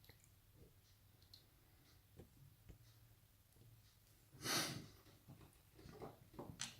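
One breathy exhale, like a sigh, lasting about half a second, about four and a half seconds in. Around it is near silence with a few faint, light clicks.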